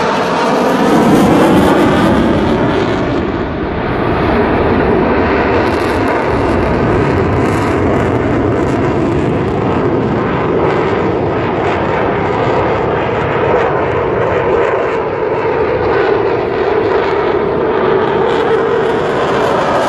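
Delta-wing jet fighter's engines heard as it flies a display overhead: loud, continuous jet noise with a sweeping, shifting tone near the start, loudest about a second or two in.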